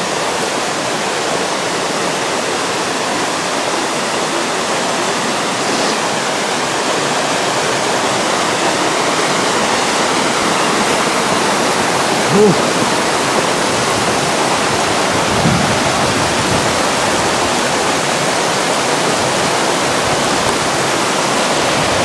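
Small waterfall and a mountain stream running over rock ledges: a steady rush of falling water that grows slightly louder towards the end. A brief voice sound a little past halfway.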